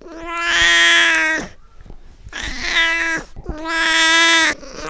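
Cat meowing: three long, drawn-out meows of about a second each, held at a fairly steady pitch, with a fourth starting right at the end.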